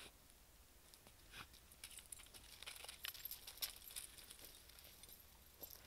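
Near silence with faint scattered clinks and rustles, busiest in the middle, from a search dog and a searcher moving over burned house debris and ash.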